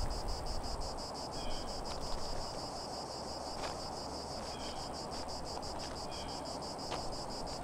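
Insects chirping in a steady, rapid pulsing trill.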